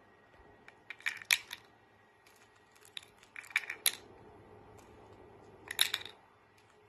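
Hard plastic stacking rings clicking and clattering against the acrylic pegs and base of a ring-stacking toy as a little corella handles them with its beak. The clicks come in three short flurries, about two seconds apart.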